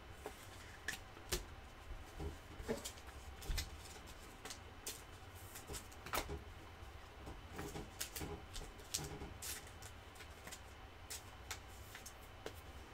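Faint handling of trading cards: light clicks and ticks at irregular intervals as glossy cards are slid and flipped one over another by hand.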